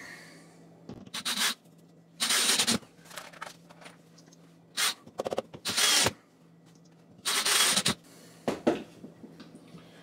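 Power drill-driver run in about six short bursts, driving screws to fasten a wooden scab behind the sheetrock as a backing for the patch.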